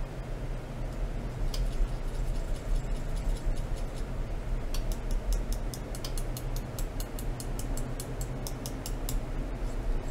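Light, irregular ticks and clicks over a steady low hum. The ticks start about a second and a half in, come thickest in the second half, and stop near the end.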